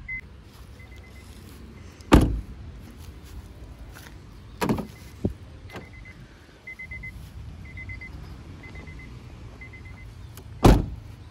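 Door thumps on a 2006 Honda Civic as it is got out of and moved around: one loud thump about two seconds in, a pair about halfway, and another near the end, over faint short beeps repeating about once a second.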